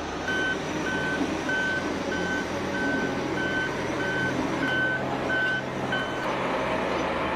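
Heavy machine's reversing alarm beeping, a single steady tone about twice a second, over the steady running of its diesel engine. The beeping stops about six seconds in while the engine keeps running.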